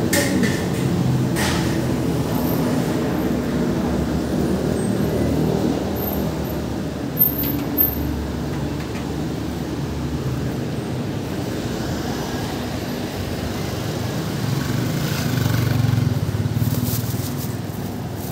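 City street traffic: vehicle engines running in a steady rumble, growing louder near the end as a vehicle draws close. Two brief sharp clicks about seven and eight seconds in.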